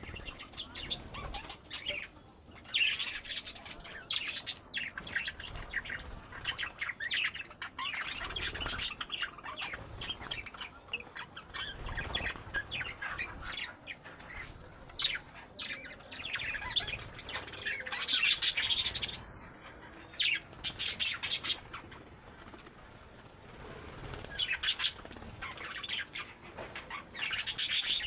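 Pet budgerigars chirping and chattering busily in irregular bursts, with wing fluttering.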